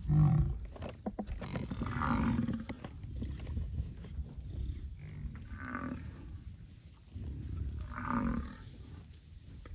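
American bison calling in a herd: a loud low grunt right at the start, then three low bellows about two, six and eight seconds in.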